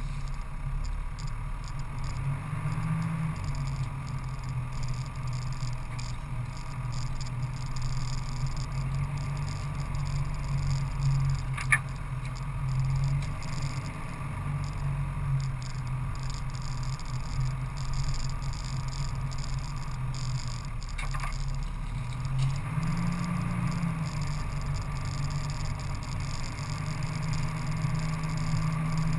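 Off-road vehicle engine running steadily while driving along a dirt track, its pitch rising briefly a couple of times, with tyre and rattle noise and two sharp clicks, one near the middle and one about two-thirds through.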